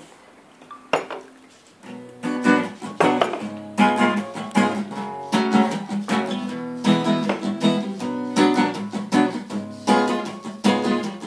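Acoustic guitar being strummed in a steady rhythm of chords. After a single faint pluck, the strumming starts about two seconds in, as a song's intro.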